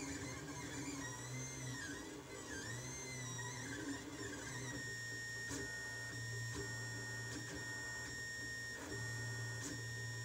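Lulzbot Mini 3D printer's stepper motors whining as the print head moves: arching, rising-and-falling tones for the first few seconds. About halfway through, a steady high whine starts, broken by sharp ticks.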